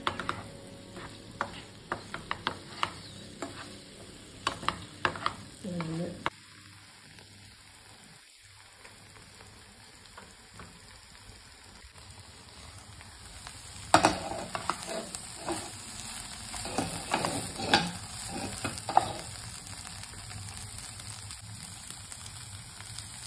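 A wooden spatula stirs and scrapes masala idli pieces in a non-stick pan over a faint frying sizzle, in quick uneven strokes. The strokes stop around the middle, and the pan quiets while a glass lid covers it. A sharp knock comes about two-thirds of the way in, then more stirring, and the steady sizzle runs on near the end.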